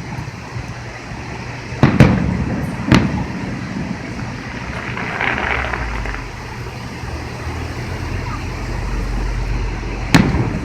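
Fireworks going off: three sharp bangs, about two seconds in, a second later, and near the end, over a steady background rumble.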